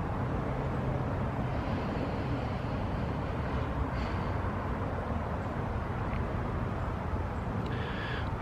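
Steady low background rumble with a faint hum and no speech.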